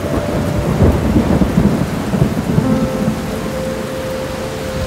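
Thunderstorm: steady heavy rain with thunder rumbling and crackling, loudest about a second in and rolling on for a couple of seconds.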